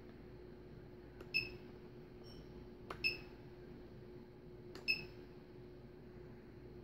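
Short high electronic beeps from a powered-up quadcopter, four times, three of them each coming just after a sharp click, over a faint steady hum.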